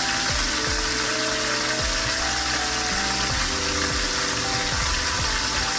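Turkey neck frying in rapeseed oil, sizzling steadily, with background music over it.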